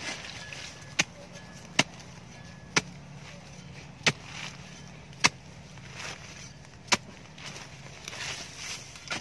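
Short-handled hoe chopping into a dry termite mound: seven sharp strikes at uneven intervals of about a second, with softer scraping of loose earth between them.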